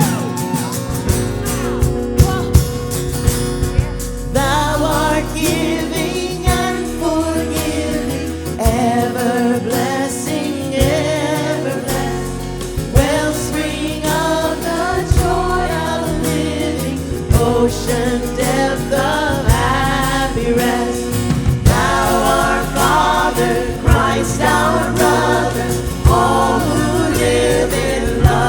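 Christmas worship song performed live: singers with a band, the voices coming in about four seconds in over guitar and a steady beat.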